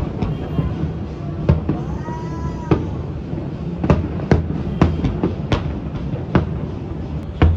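Fireworks bursting overhead: about a dozen sharp bangs at irregular intervals, with a brief pitched tone rising and falling about two seconds in.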